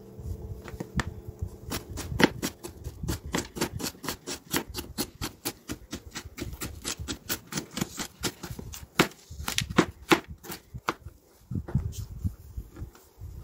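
Kitchen knife slicing a carrot into thin strips on a cutting board: a quick, even run of sharp taps of the blade on the board, about four a second, thinning out near the end.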